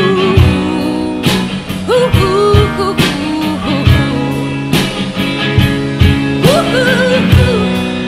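A woman singing, holding long notes with pitch slides, over electric guitar and a steady beat: live band music.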